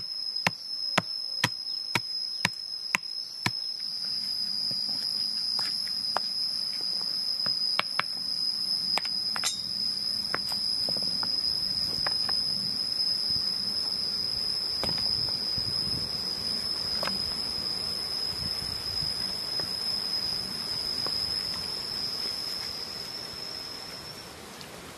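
A steady high-pitched insect drone, with quick chopping strokes, about two or three a second, that stop about three and a half seconds in. After that only scattered light knocks are heard. The drone cuts off shortly before the end.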